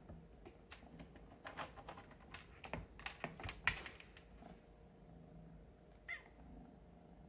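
Kittens at play: a run of quick, irregular clicks and taps for about four seconds, then one short mew that falls in pitch near the end.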